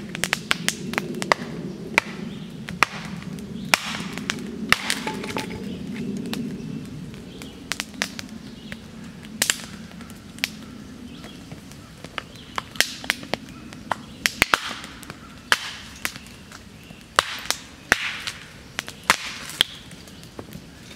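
Hatchet strikes splitting cedar on a chopping stump, coming as irregular sharp knocks, beside a wood fire that crackles and hisses.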